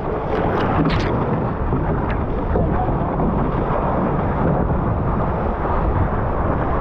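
Steady rush of wind buffeting the onboard camera microphone and water streaming past a Formula 18 catamaran's hull at speed, with a few sharp splashes of spray in the first second.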